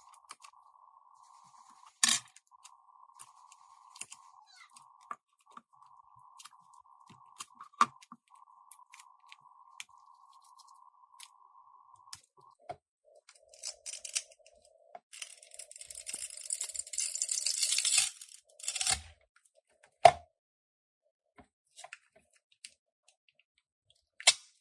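Adhesive pull-tab strips under a phone battery being stretched and peeled out, a crackling tear that grows louder for about three seconds in the middle, with scattered light clicks and taps from tools and the phone, over a faint steady hum.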